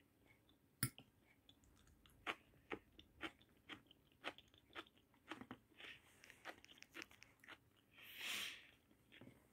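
A person chewing food with the mouth closed, faint clicks about twice a second. A single sharp click about a second in, and a short soft hiss near the end.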